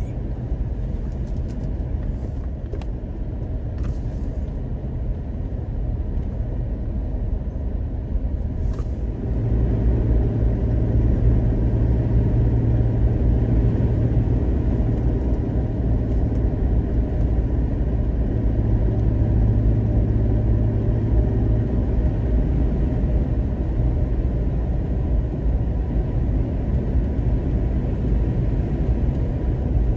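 Jeep Rubicon driving at road speed, heard from inside the cab: a steady engine and tyre rumble. A low drone grows louder about ten seconds in and eases off a little after about twenty seconds.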